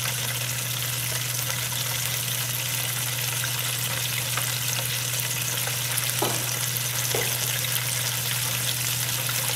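Battered chicken pieces deep-frying in hot peanut oil in an electric deep fryer, a steady vigorous sizzle as moisture boils out of the chicken early in the fry. A steady low hum runs underneath.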